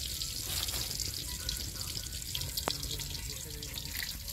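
Steady hiss with fine crackling from a cooking pot heating over an open wood fire.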